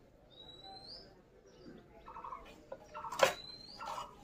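Birds calling in the background: short, rapidly pulsed calls repeating every second or so and a couple of quick rising whistles. A knife clicks and scrapes on fish pieces in a steel bowl, with the loudest sharp click about three seconds in.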